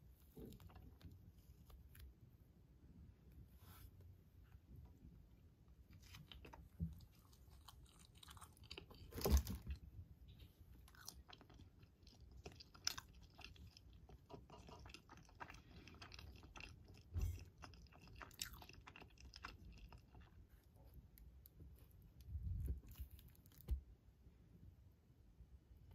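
Quiet close-up food-handling sounds: a soft filled steamed bun being pulled apart and squeezed by hand, with a few light knocks, the loudest about nine seconds in. Near the end a wooden skewer prods siomay in a paperboard box.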